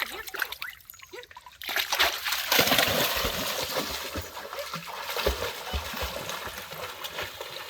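Creek water splashing and trickling. The splashing starts suddenly about a second and a half in, then eases into a steady babble of running water.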